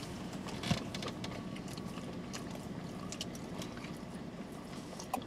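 Faint sounds of drinking from plastic water bottles: scattered small clicks and crinkles over a low, steady background hum.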